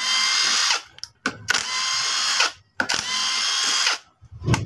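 Cordless impact driver running in three bursts of about a second each, with short blips between them, as it unscrews the four clutch pressure-plate bolts of a Yamaha Sniper 150. A sharp click near the end.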